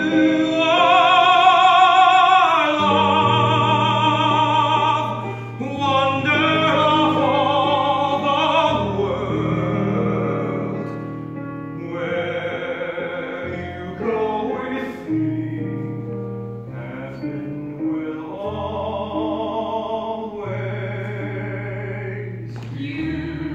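Classically trained voice singing a slow ballad in long held phrases with a wide vibrato, over a piano accompaniment.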